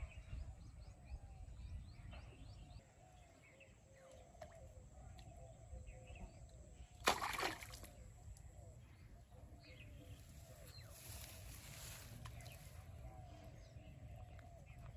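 A short, sharp splash about seven seconds in as a fishing line, hook and float are jerked up out of the water on a strike. Faint repeated chirping and a low rumble of wind on the microphone run underneath.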